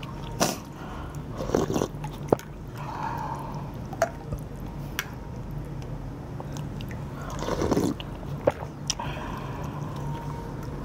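Metal ladle stirring and scooping broth in a large porcelain bowl: liquid sloshing and dripping, with scattered light clinks and a few louder splashy scoops.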